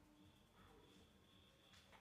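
Near silence: faint room tone with a thin, steady high tone and one faint tick near the end.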